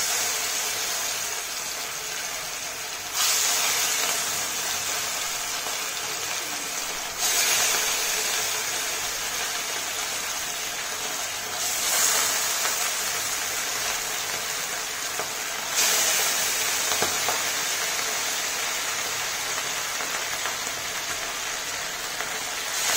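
Rohu fish pieces frying in smoking-hot oil in a kadhai, with a steady sizzle. The sizzle jumps louder each time another piece is slid in: once at the start, then four more times about every four seconds, easing back between.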